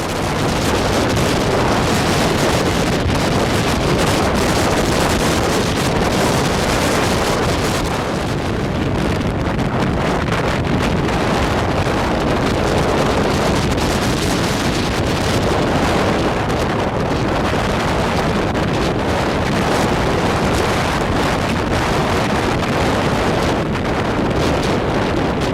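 Strong hurricane wind buffeting the microphone in steady gusts, with surf breaking on the beach beneath it.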